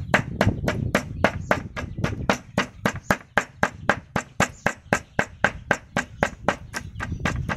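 Meat cleaver chopping minced pork and fish on a round wooden chopping block: a steady run of quick, even strokes, about five a second.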